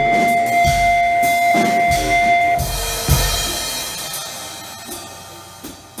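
Live experimental improvised music from a cello, percussion, guitar and electronics quartet. Two steady held tones sound over low drum hits that come about once every 0.8 seconds. The tones stop about two and a half seconds in, one more hit lands, and the sound then slowly dies away.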